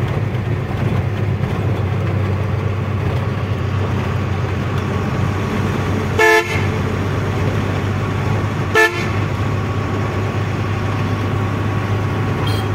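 Truck engine running steadily on the road with a low hum, and a vehicle horn sounding twice: a short blast about six seconds in and a shorter toot near nine seconds.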